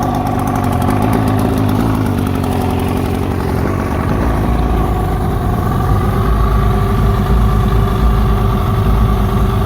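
1972 Mercury 402 40 hp two-cylinder two-stroke outboard motor running at a rough idle, its speed rising slightly about halfway through.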